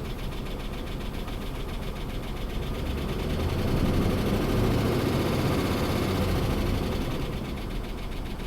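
A 5.7 L Hemi V8 in a 2005 Ram 2500 running with a single-cylinder misfire and a rapid tapping from the top end, which the mechanic suspects is a worn camshaft lobe chewed up by a seized roller lifter. The engine grows louder for a few seconds in the middle.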